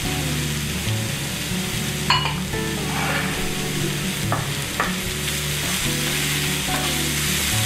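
Chopped onions sizzling over a high flame in a frying pan, stirred with a wooden spatula that scrapes and knocks against the pan a few times, with soft background music underneath.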